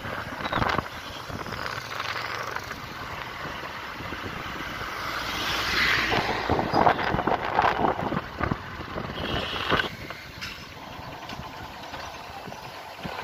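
Motorcycle running on the road amid other traffic, louder about five to eight seconds in.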